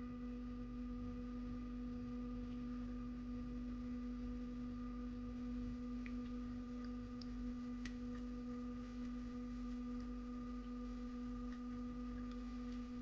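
A faint, steady hum held on one low pitch with fainter overtones, unchanging throughout, with a few tiny ticks.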